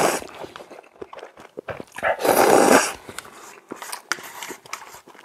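A person loudly slurping noodles and broth from a cup of ramen, twice: once just as it begins and again about two seconds in for nearly a second. Soft chewing and mouth clicks follow.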